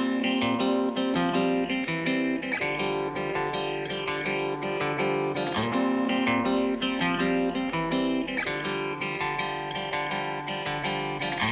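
Background music led by guitar, with notes plucked and strummed in a steady rhythm.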